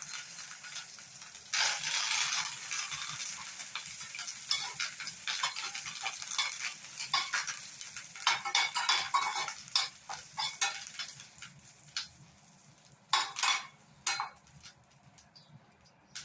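Curry leaves and dried red chillies sizzling and crackling in hot oil with mustard seeds, a tempering for rasam, with the pan being stirred. The sizzle surges about a second and a half in, then goes on as uneven crackles with a few sharp clicks, dying down near the end.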